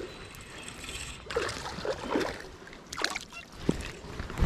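Water splashing and sloshing in short, irregular bursts as a hooked smallmouth bass is landed and handled at the water's edge.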